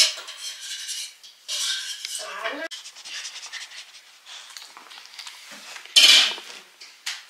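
Kitchen utensils clinking and scraping against dishes, in a series of short irregular clatters, with a louder scrape about six seconds in.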